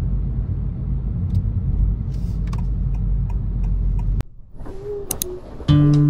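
A steady low rumble, with a few faint clicks over it, that cuts off suddenly about four seconds in; music starts near the end.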